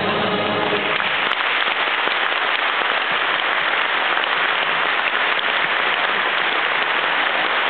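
The final held chord of the choir and wind band fades out within the first second, and steady audience applause fills the rest.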